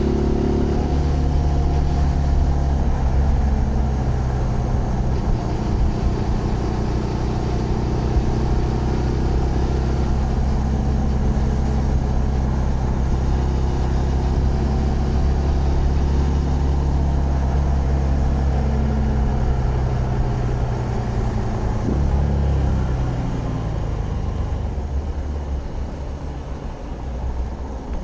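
Zontes GK 125 motorcycle's single-cylinder engine running at steady cruising revs under way; a little past three-quarters of the way through the revs drop and the engine note falls and quietens as the throttle closes.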